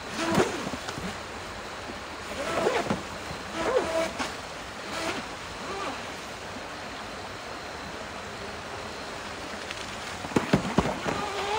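Shallow rocky river rapids rushing steadily, with short swells of spray as an RC jet boat runs through the water. A few sharp knocks come near the end.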